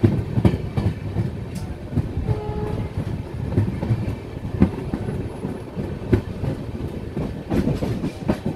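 Indian Railways express coaches running at speed, heard from the side of the moving train: a low rumble with irregular clacks as the wheels pass over rail joints.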